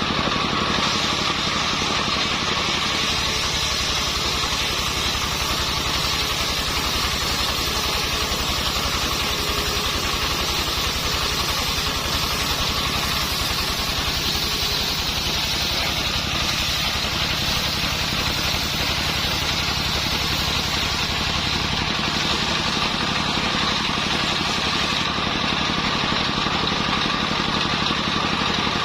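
Engine driving a mobile circular sawmill, running steadily with an even, rapid low pulse and a constant high hiss.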